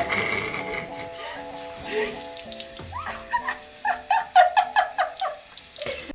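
Water spraying from a handheld shower head onto hair, over background music. From about three seconds in, a person laughs in quick, rising bursts, the loudest sound here.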